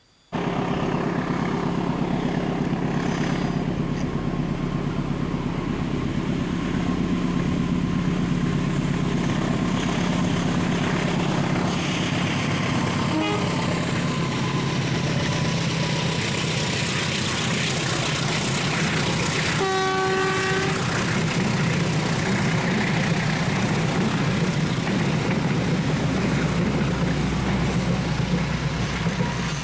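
Diesel locomotive hauling a passenger train, its engine running steadily, with one horn blast of about a second roughly two-thirds of the way through.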